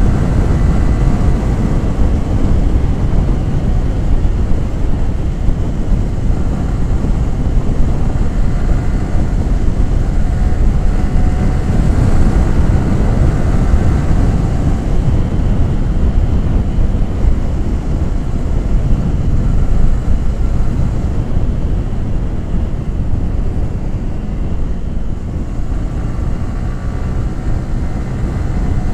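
Yamaha R15 V3's 155 cc single-cylinder engine and exhaust running steadily on the move. It eases off about three quarters of the way through, then picks up again near the end.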